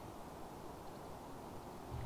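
Faint, steady low background noise of an outdoor trail, with no distinct events.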